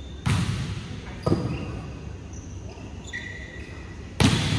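Volleyball being struck during a rally on an indoor court: three sharp smacks that echo in the hall, two about a second apart and a louder one about three seconds later.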